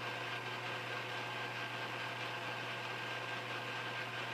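Metal lathe running steadily with a constant low hum while a file is held against the spinning 1018 cold-rolled steel screw blank to break its edges.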